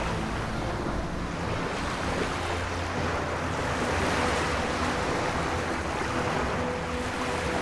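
Small waves washing onto a stony beach, with wind on the microphone.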